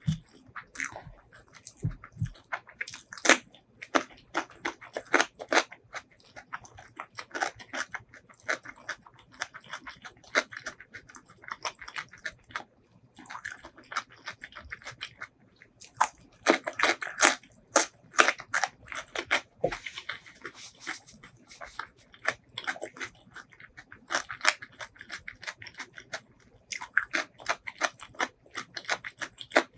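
Close-miked chewing of spicy chicken biryani, with many wet mouth clicks and crackles, and crisp crunching bites of raw cucumber about halfway through, the loudest part.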